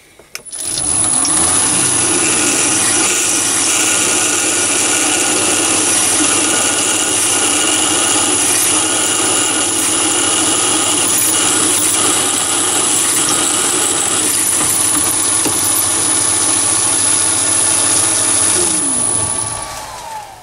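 Mini lathe running, a twist drill in the tailstock chuck boring a hole about 10 mm deep into the spinning workpiece: a steady motor hum with a constant high-pitched whine. Near the end the lathe is switched off and the sound falls in pitch as the spindle winds down.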